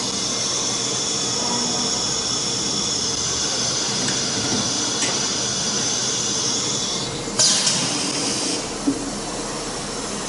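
CNC router with an automatic tool changer running a tool-change cycle: a steady high-pitched whine for about seven seconds, then a sudden hiss of compressed air lasting about a second, and a sharp click a little later.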